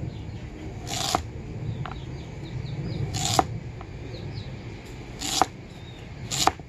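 A freshly sharpened chef's knife slicing a raw purple sweet potato on a wooden cutting board: four crisp cuts, each ending in a knock of the blade on the board. The hard, dense tuber makes each slice take a firm push.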